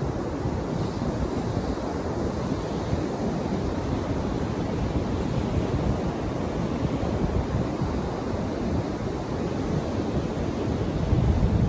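Ocean surf washing onto a sandy beach as a steady rush, with wind buffeting the microphone in a low rumble that grows stronger near the end.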